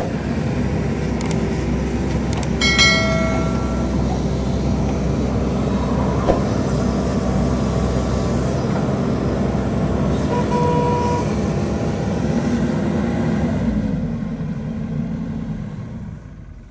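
Diesel engine of a JCB 3DX backhoe loader running steadily as it digs and loads sand, fading out near the end. A short high-pitched tone sounds about three seconds in, and a fainter one comes near eleven seconds.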